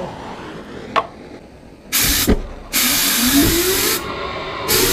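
Homemade radial-turbine jet engine being spun up by its starter in three short, loud bursts, with the turbine's whine rising in pitch during the second and third bursts. A single click comes about a second in.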